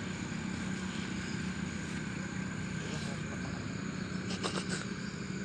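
Steady drone of an engine running, with a few sharp clicks about four and a half seconds in.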